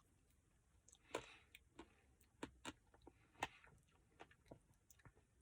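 Close-up eating sounds: a person chewing a brownie ice-cream Blizzard, with scattered wet mouth clicks and short smacks. The louder smacks come about a second in and about three and a half seconds in.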